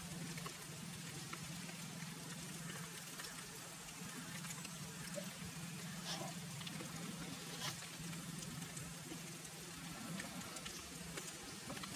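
Faint, steady outdoor background hiss with a low hum underneath and a few soft ticks.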